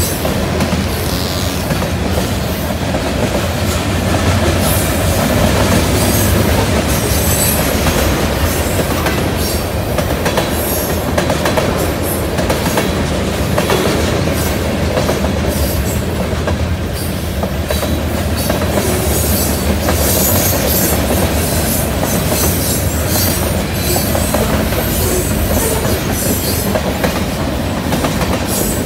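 Freight train cars, covered hoppers and tank cars, rolling past at close range: a loud, steady rumble of steel wheels on rail with frequent clicks and clatter throughout.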